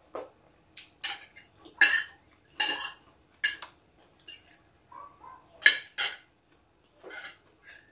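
Close-up eating sounds of a person chewing chicken curry: about a dozen irregular short, sharp smacks and clicks, the loudest about two seconds in and just before six seconds.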